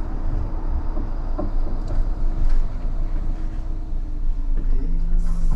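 Bombardier Flexity 2 tram running along its track, heard from inside the car: a steady rumble with a faint hum. A lower hum comes in near the end.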